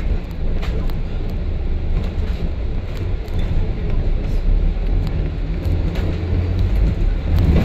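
Double-decker bus on the move, heard from inside: a steady low engine and road rumble with a few faint clicks and rattles.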